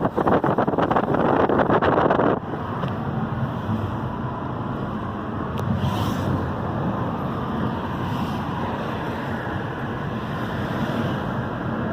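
Car driving on a road: loud wind rush buffeting the microphone, which drops suddenly about two seconds in to a steadier, quieter rumble of road and engine noise.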